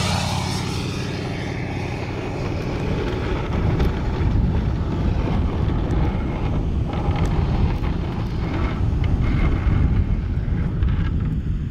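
Wind buffeting the microphone in gusts, with a pickup truck engine idling steadily underneath for the first few seconds.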